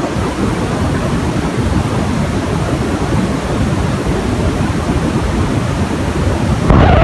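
A loud, steady rushing noise with no voice in it, recorded in place of speech. It grows louder and fuller about seven seconds in.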